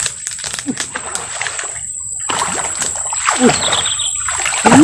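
Water splashing and sloshing as a snakehead strikes at a lure on the surface of a swamp pond, in irregular splashes with a short break about two seconds in. A short, loud vocal exclamation comes at the very end.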